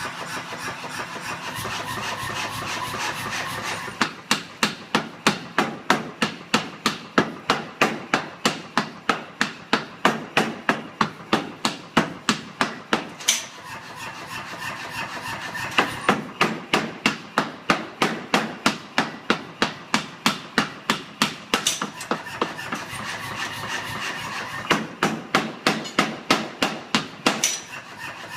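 Power hammer upsetting a 2-inch round steel bar, striking in fast, even runs of about three blows a second. The motor runs alone for the first few seconds, and twice more between runs of blows.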